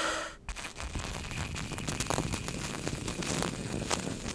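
Metal challenge coin on dry ice, crackling and chattering with many irregular small clicks as the sublimating gas rattles it against the ice. A steady singing tone from the coin cuts off at the very start.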